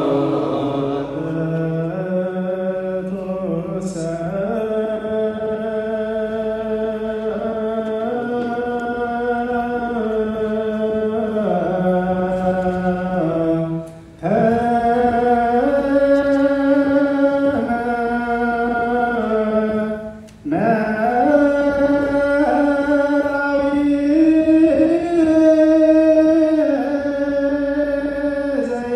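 Ethiopian Orthodox liturgical chant sung by a group of voices: one slow melody held on long notes that step up and down. It breaks off briefly twice, about 14 and 20 seconds in, then resumes.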